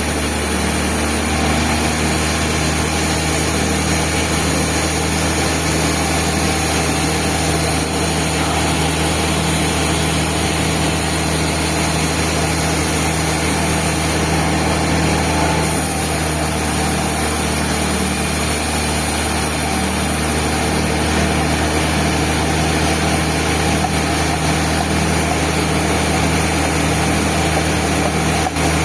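Band sawmill running steadily with an even, continuous machine hum.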